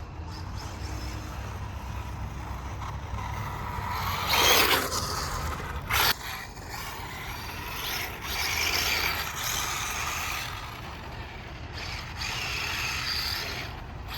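Arrma Limitless RC car's electric motor and drivetrain whining in repeated bursts as it is driven, with a short rising sweep about four and a half seconds in and a sharp click about six seconds in.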